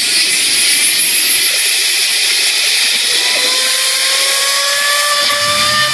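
Compressed air from a blowgun nozzle hissing loudly against a golf ball cupped in a towel, spinning it up. About three seconds in a whine from the spinning ball comes in and slowly rises in pitch as it speeds up.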